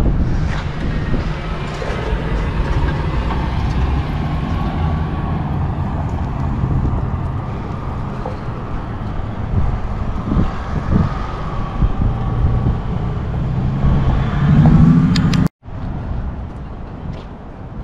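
Street traffic: motor vehicles passing, with a steady low rumble. The loudest is a vehicle rumble just before the sound drops out abruptly for a moment near the end.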